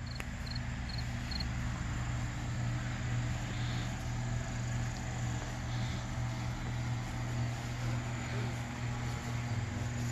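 Steady low hum with a faint outdoor haze, and four quick high chirps in the first second and a half, followed by a couple of soft chirps later.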